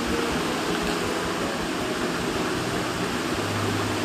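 Steady, even hiss of background noise with a faint low hum.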